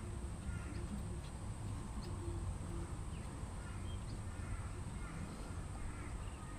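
Quiet background: a steady low rumble with faint, scattered bird chirps and a few faint light ticks. No clear tool sound.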